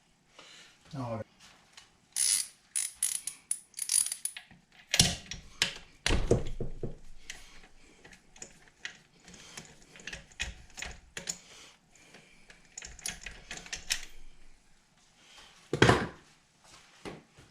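Hand tools working on engine parts: a ratchet wrench clicking in short runs, mixed with metal knocks and clanks. The loudest knocks come about five to six seconds in and again near the end.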